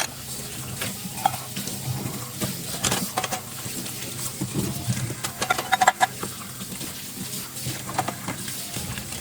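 Dishes and cutlery being handled in a kitchen, clinking and knocking together, with several sharp ringing clinks, the loudest about five and a half to six seconds in, over a steady low hum.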